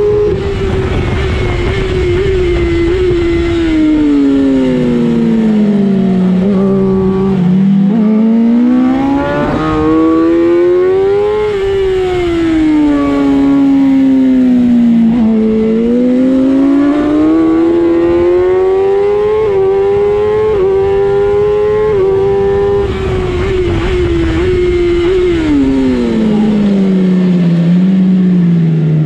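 Racing motorcycle engine heard from onboard at race pace, its revs climbing hard and then dropping sharply under braking three times, with wind noise rushing past the bike.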